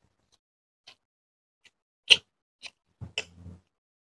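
A man chewing a handful of rice and chicken curry, with a few short sharp wet mouth smacks, the loudest about two seconds in and a short cluster near the end.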